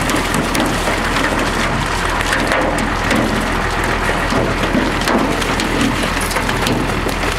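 Water gushing out of a fish-stocking truck's tank and down an aluminium chute into a lake, with catfish sliding down the chute and splashing into the water in a dense, steady rush. A steady low hum runs underneath.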